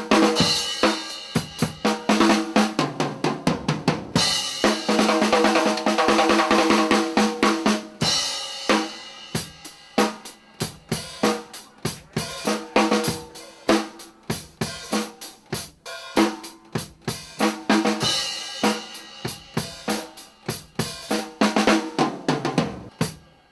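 Live band playing: a drum kit keeps a steady beat of snare, bass drum and cymbal hits, with held chords from other instruments joining in for stretches of several seconds.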